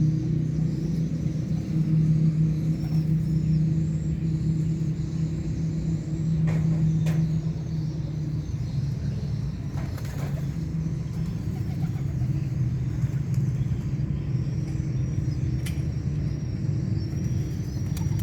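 Steady low motor hum running without a break, with a few faint clicks.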